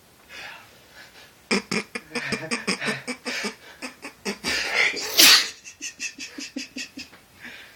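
A person's funny sneeze: a run of quick, rapid pulses from about a second and a half in, building to one loud sneeze a little past five seconds, then short pulses fading away.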